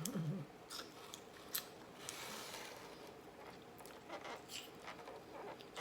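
Faint sounds of eating a crab claw: a few sharp clicks and cracks of shell being picked apart, with soft chewing.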